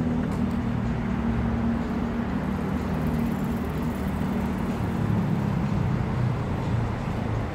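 City street traffic: a steady rumble of vehicle engines passing by.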